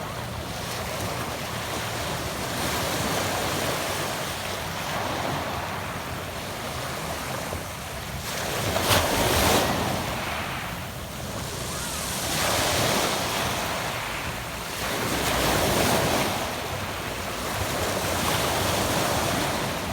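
Sea waves washing onto a pebble beach, the surf swelling and fading every three to four seconds, with the loudest wave about nine seconds in.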